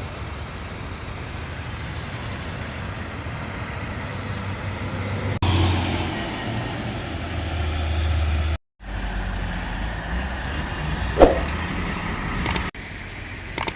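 Bauxite ore processing machinery running with a steady low rumble and hiss, broken by several abrupt cuts. A few sharp knocks near the end.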